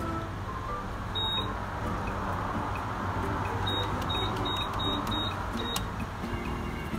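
Gas pump keypad beeping as its buttons are pressed: one short high beep, then six more in quick succession about 0.4 s apart. Under the beeps runs a broad rushing noise that swells in the middle.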